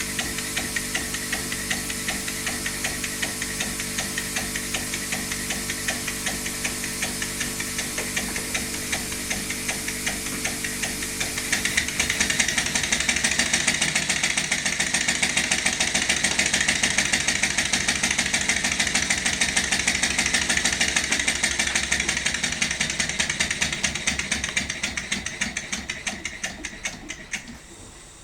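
Bernays "Non Death Engine" model engine running with a fast, even beat. About twelve seconds in it gets louder and brighter, then the beat weakens and dies away near the end.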